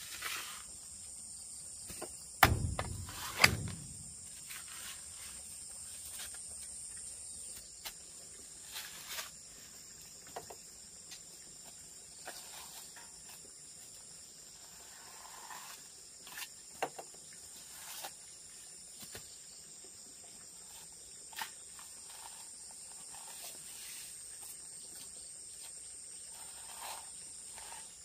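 Steady high chirring of insects, with two heavy thuds a second apart early on and scattered light knocks and clicks after.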